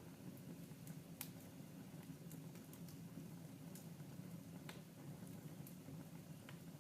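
Wood fire burning in a fireplace, crackling faintly: sparse sharp pops and clicks a second or so apart over a low steady rumble.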